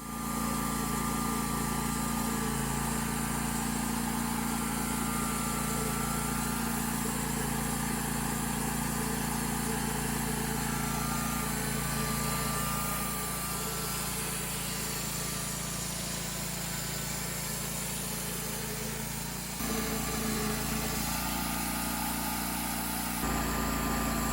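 Homemade sawmill's engine running steadily under load as the blade cuts through a large spruce log. The sound shifts abruptly twice in the last few seconds.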